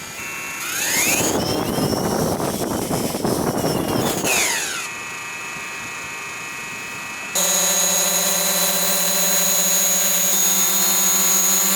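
DJI Mavic Pro quadcopter taking off: its propellers spin up with a rising whine, run loud for about three seconds, then the pitch falls as the motors slow. About seven seconds in a louder, steady multi-tone whine of the drone's motors cuts in sharply.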